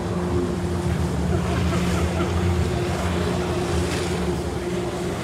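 Jet ski engine running steadily as it drives a water jetpack through its hose, a continuous drone over the rush of the water jets spraying.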